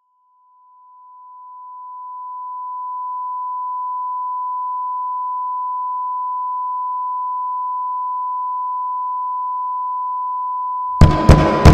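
A steady, high-pitched electronic sine tone, like a test tone, swelling up over the first few seconds and then holding. Near the end, loud thumps and a burst of noise cut in over it.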